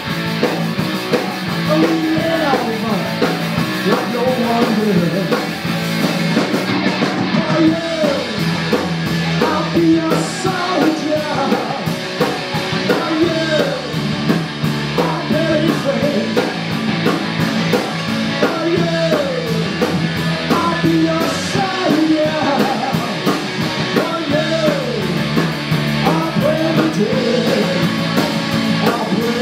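Live rock band playing an up-tempo song: electric guitar, bass guitar and drum kit with a fast, steady cymbal beat, and a singer's voice over the top.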